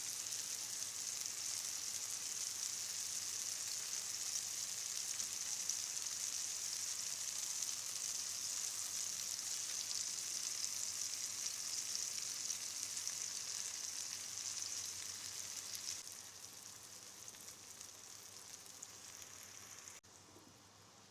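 Tomato and egg omelette sizzling as it fries in a pan, a steady hiss. It gets clearly quieter about three-quarters of the way through and drops again abruptly near the end.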